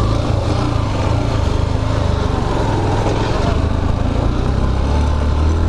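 Motorcycle engine running steadily under way, with road and wind rush over it.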